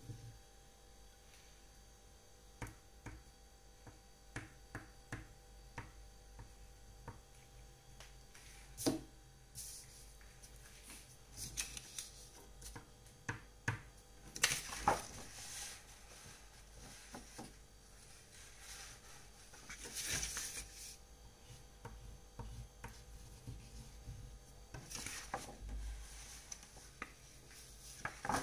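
Watercolour painting materials being handled: scattered light taps and clicks of brushes and tools, with a few brief swishes about halfway through and near the end, over a faint steady hum.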